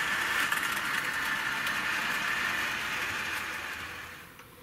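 Hornby OO-gauge 0-4-0 tank locomotive with a small can motor running round the track pulling three coaches: a steady whirr of motor and wheels on the rails that fades out near the end.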